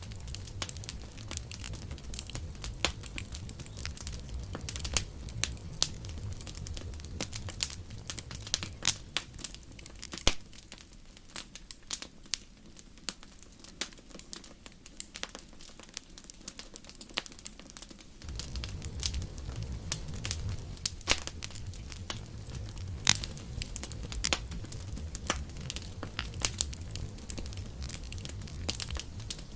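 Wood campfire crackling, with frequent sharp pops and snaps over a low rumble of burning. The low rumble falls away for several seconds about ten seconds in, leaving the snaps on their own, then returns.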